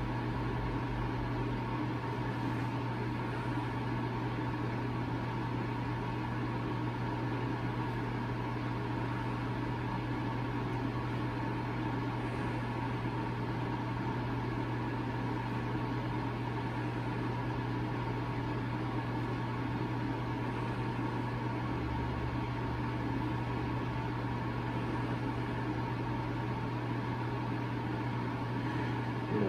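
Steady machine hum: a constant low drone with fainter, higher steady tones above it.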